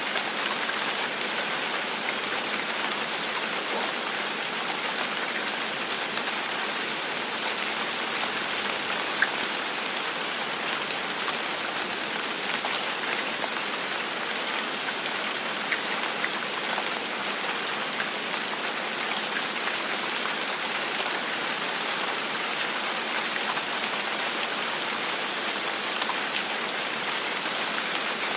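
Steady gentle rain falling, an even hiss with scattered individual drops ticking on a surface.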